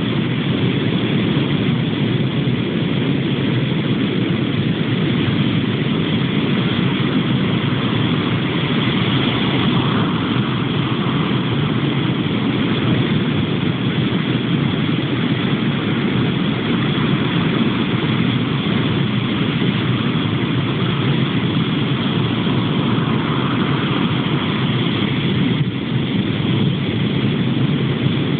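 Steady low roar of Atlantic surf breaking on a sandy beach, with slight swells as waves break. The recording is dull, cut off in the highs.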